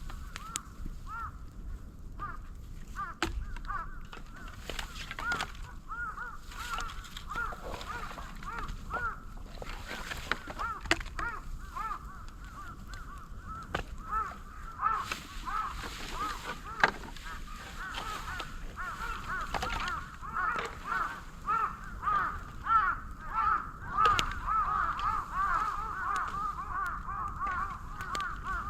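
Moso bamboo burning in an open fire: crackling, with a couple of sharp pops, about 11 and 17 seconds in. Over it runs a continuous chatter of short, squeaky, wavering chirps that grows busier toward the end.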